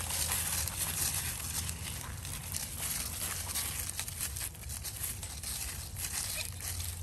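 Dry fallen leaves crackling and crunching as a goat walks and noses through them while foraging, a dense run of small crackles over a low steady rumble.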